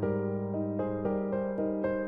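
Background music: a piano melody of struck single notes, about three or four a second, over held low notes.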